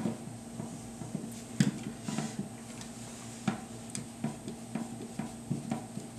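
Irregular light clicks and knocks of rifle-stock parts and screws being handled and fitted onto an AK-47.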